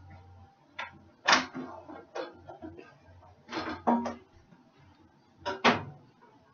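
A handful of sharp knocks and clatters at irregular intervals, each with a brief ring after it; the loudest come a little over a second in and near the end.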